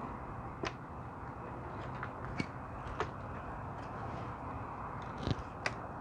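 A few scattered light clicks and knocks from the camera being handled and repositioned, over a steady low background rumble.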